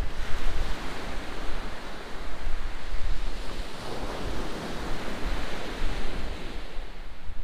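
Sea waves breaking on a shingle beach, surging in at the start and again about four seconds in, with wind rumbling on the microphone.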